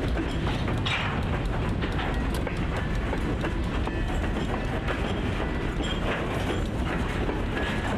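Diesel freight locomotive and cars working a rail yard at low speed: a steady engine rumble with scattered clicks and knocks from the rolling cars.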